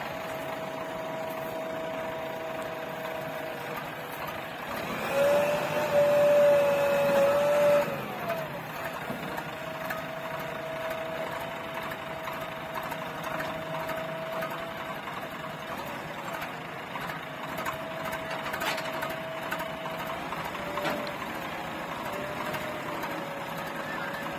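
JCB backhoe loader running with a steady whine; about five seconds in it works harder and grows louder and fuller for roughly three seconds, then settles back to the steady whine.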